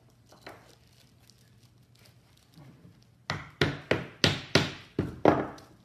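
Hammer striking a wooden block to press a bent wood strip against a bending form: about eight quick, sharp blows starting about three seconds in, with a faint tap or two before.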